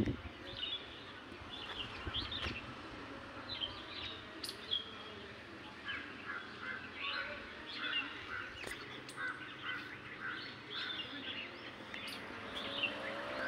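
Several birds chirping and calling, many short calls overlapping, with a few faint sharp clicks.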